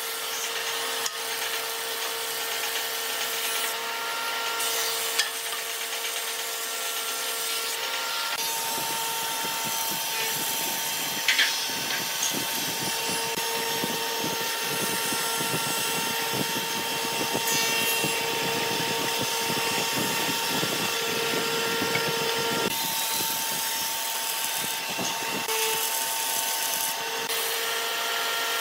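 Combination planer-thicknesser running with a steady whine while a wooden board is fed through the thicknesser and planed. The dense rough sound of the cutterhead taking wood starts about a third of the way in and eases off about four-fifths of the way through, with one sharp click in between.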